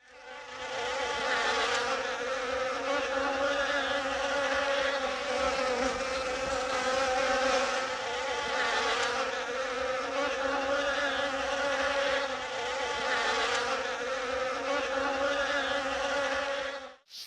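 Steady buzzing of flying insects, a low hum with many overtones, fading in at the start and stopping abruptly near the end.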